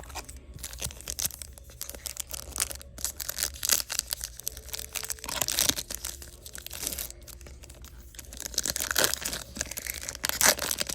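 Foil trading-card pack wrapper being torn open and crinkled, with cards clicking against each other as they are handled. There are louder rips about halfway through and twice near the end.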